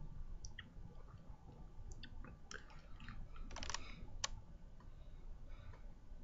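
Soft, scattered mouth clicks and lip smacks of a man puffing on a tobacco pipe, with a small cluster of clicks past the middle and the sharpest one about four seconds in.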